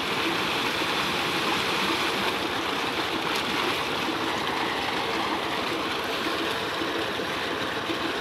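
Water gushing steadily from a tubewell's outlet pipe into a concrete tank, a constant rushing splash.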